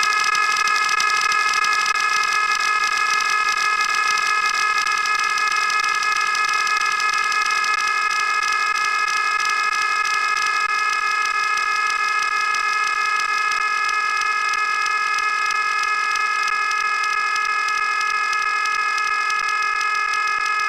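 A loud, steady blaring tone made of several high pitches sounding together, held without change.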